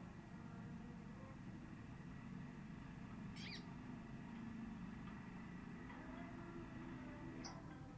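Female sogon bird calls, two short high calls about 3.5 s and 7.5 s in, over a steady low background noise.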